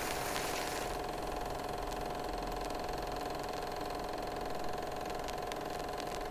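Steady mechanical whirring of a small motor-driven machine, with a constant hum.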